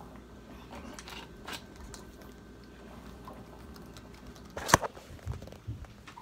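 Handling noise of a phone held against clothing: faint rustling and small clicks, with one sharp knock about three-quarters of the way through and a couple of soft thumps after it.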